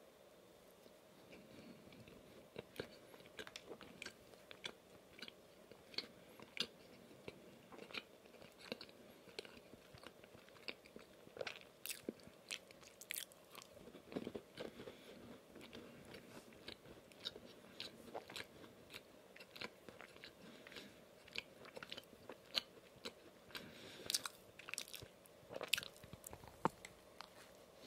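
Close-miked chewing of a white-glazed, sprinkle-topped yeast donut (Dunkin' Brown Cookie Man donut), with many small sharp mouth clicks and smacks, and a fresh bite into it near the end.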